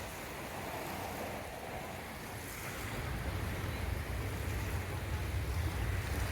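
Wind buffeting the microphone outdoors: a steady, fluctuating low rumble with a hiss of open-air noise over it.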